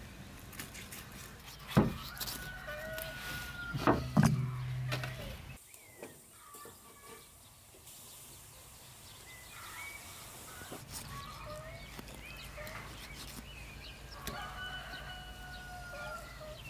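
Farmyard chickens: a rooster crowing twice, a couple of seconds in and again near the end, with hens clucking between. A few sharp loud knocks come in the first few seconds.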